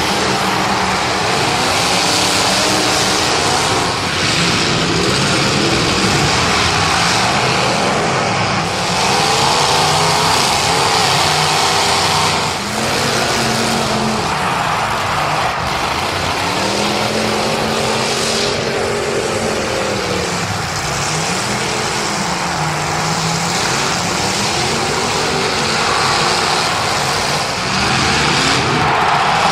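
Several demolition derby cars' engines running and revving at once, their pitches rising and falling against each other over a steady rumble.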